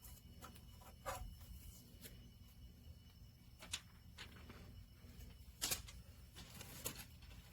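Faint handling noise as a benchtop DC power supply is picked up and looked over: a few light clicks and taps, the loudest a little before the six-second mark, over a low steady hum.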